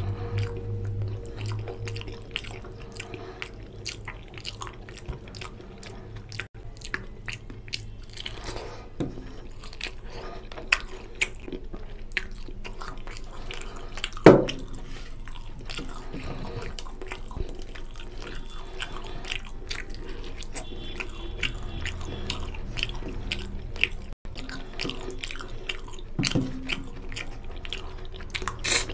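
Close-miked eating by hand: fingers squishing and gathering rice mixed with curry on a steel plate, and wet chewing and lip-smacking clicks, with one louder mouth sound about halfway through.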